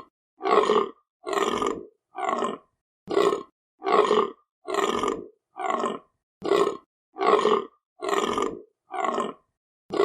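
Deer calling: a short, harsh call of about half a second, repeated at a very even pace of roughly one every 0.8 s, about twelve times, with dead silence between calls.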